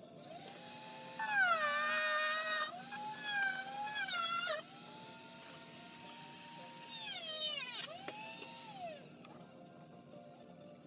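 Dremel rotary tool cutting a plastic Nerf blaster shell: a high whine that dips in pitch each time the cutter bites and recovers between cuts, with louder gritty stretches, then winds down about nine seconds in.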